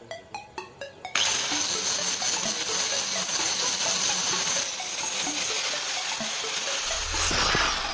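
Electric angle grinder cutting into a steel bar: a loud, steady hiss of disc on metal with a high whine, starting suddenly about a second in. Near the end the cut stops and the whine falls in pitch as the disc spins down.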